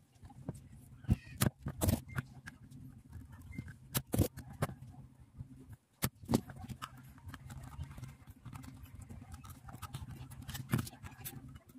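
Spring-loaded desoldering pump snapping as its plunger is released to suck molten solder from circuit-board joints, a series of sharp clicks over a steady low hum.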